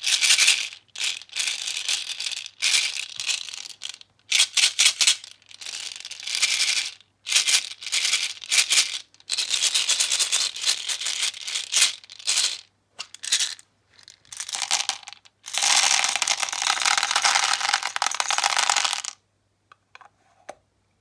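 ASMR trigger sounds: repeated bursts of rattling, each from a fraction of a second to a few seconds long, with the longest spell, about three seconds, near the end.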